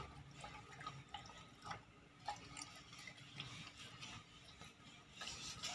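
A dog eating dry kibble from a plastic bowl: faint, irregular crunches and clicks as it picks up and chews the pieces.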